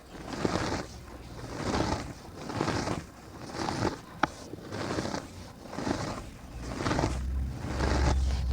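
Dry cement dirt crumbling and scraping in gritty strokes, about one a second, with a single sharp click about four seconds in. A low rumble joins near the end.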